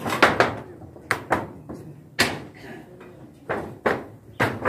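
Footsteps on a corrugated metal roof: a string of sharp, irregular bangs, several of them in quick pairs.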